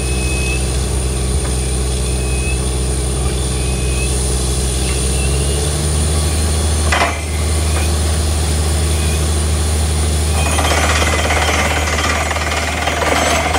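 Truck-mounted borewell drilling rig drilling: a steady mechanical drone with hammering, and its pitch shifts about five seconds in. There is a short sharp knock about seven seconds in, and a rougher, noisier rushing joins about ten seconds in as slurry flushes from the bore.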